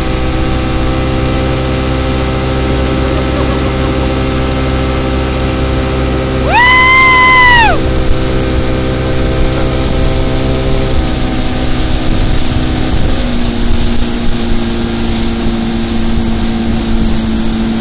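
Motorboat engine running at speed, a steady hum over the rush of water from the wake; about two-thirds of the way in its note drops lower. Near the middle one long, high yell, about a second, rises and falls away.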